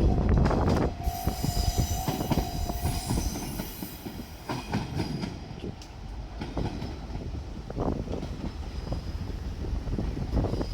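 A diesel railcar passes over a level crossing. Its wheels squeal high in the first few seconds and then knock over rail joints. A level crossing bell rings and stops about three seconds in.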